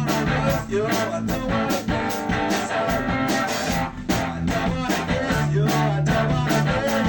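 Rock band playing an instrumental passage: guitars over bass and drums with a steady beat, no vocals.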